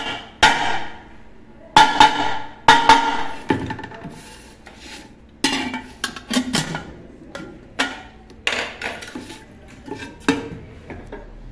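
Swollen pressure cooker being knocked with light blows to straighten it out of shape: about a dozen sharp metallic knocks, each ringing briefly, coming at uneven intervals.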